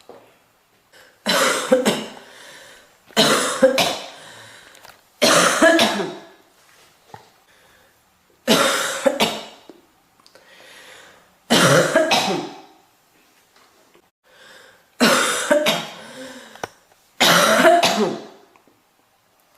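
A girl coughing in seven bouts a couple of seconds apart, each bout a quick run of two or three coughs.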